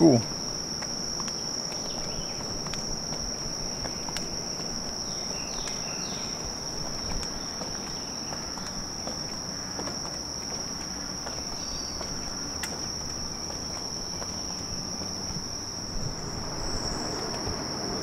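Steady high-pitched chorus of insects, one continuous shrill trill held without a break.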